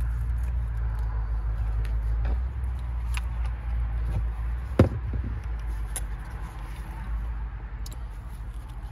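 Light clicks and a sharp knock about five seconds in as chainsaw parts and covers are handled, over a steady low rumble.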